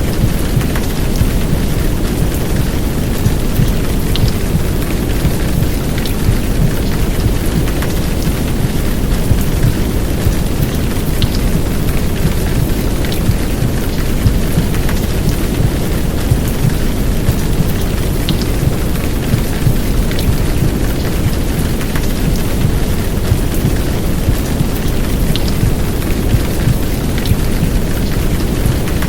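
Heavy downpour of rain layered over a simulated womb sound. A steady, dense low noise carries most of the energy, with scattered light raindrop ticks on top.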